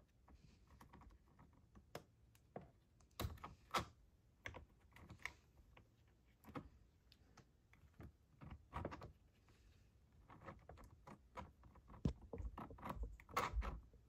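Faint, irregular clicks and taps of hands working small plastic and rubber parts at a STIHL MS210 chainsaw's carburetor, prying the rubber hose connections off it. The clicking gets busier near the end.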